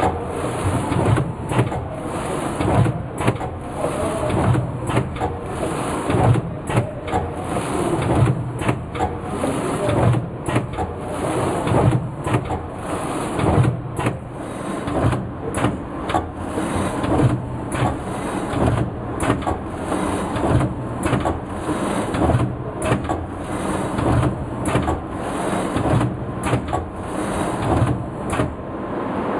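BBM FP500HSE automatic film bundling machine running as it wraps cartons in film: a steady mechanical running noise broken by repeated clunks and clicks, roughly once a second.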